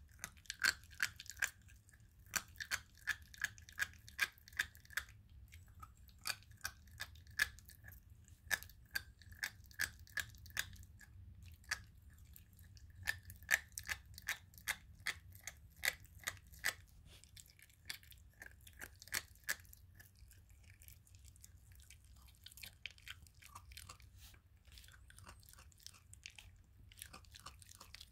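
German Shepherd puppy chewing and crunching raw chicken with bones: a quick series of sharp crunches, a few a second, growing sparser over the last several seconds.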